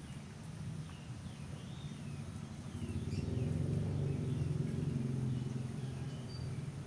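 Outdoor ambience: a low engine hum that grows louder for a couple of seconds from about three seconds in, with scattered short bird chirps.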